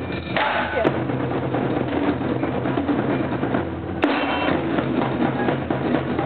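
Ensemble of large taiko-style barrel drums beaten in a fast, dense rhythm, with a brief falling tone about half a second in.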